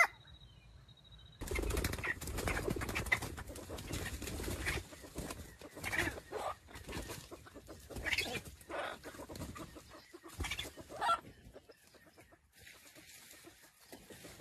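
A wild junglefowl rooster moving on dry leaf litter: an irregular crackling rustle of dry leaves, starting about a second and a half in and dying down in the last couple of seconds.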